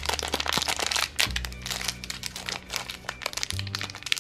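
A small wrapper crinkling in rapid crackles as fingers unwrap a toy figure from it. Background music with held bass notes plays underneath.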